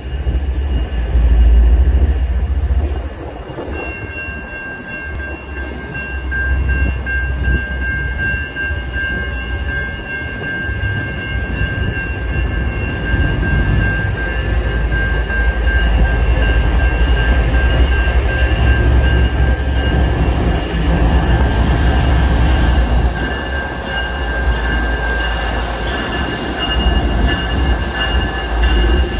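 Railroad crossing signal bell starts ringing about four seconds in as the gates lower, a steady high ringing over a heavy low rumble. The rumble grows as a GE ES44DC diesel locomotive approaches and reaches the crossing near the end.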